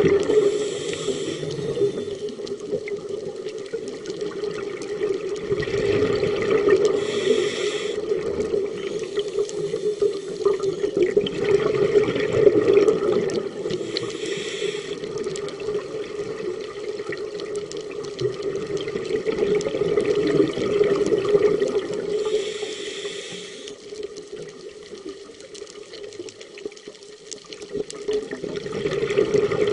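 Underwater, a scuba diver's regulator exhaust releases bubbles in bursts of about a second, roughly every seven to eight seconds, over a steady low hum.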